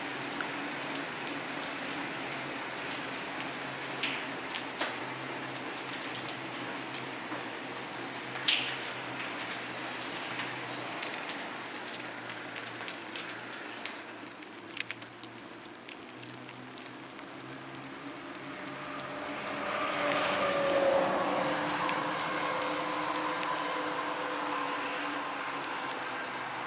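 Steady traffic noise from the nearby interstate highway, with a few sharp clicks. In the second half a vehicle passes louder, its tone dropping slightly as it goes by.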